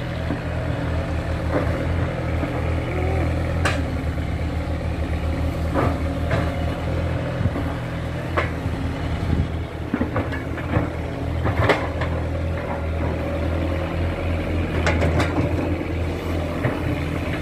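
Kato crawler excavator's diesel engine running steadily under work, with occasional sharp clanks every few seconds.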